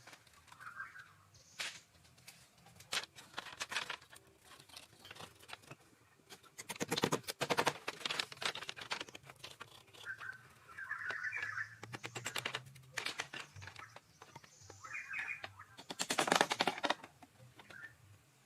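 Irregular knocks and scraping strokes, with two dense runs of rapid strokes about seven and sixteen seconds in.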